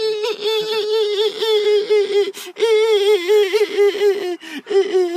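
A child's voice imitating a bat: a long, high, squeaky tone that wobbles rapidly in pitch, with a short break about two seconds in.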